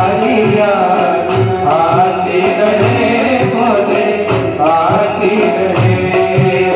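Devotional song sung over sustained instrumental tones with a steady drum beat.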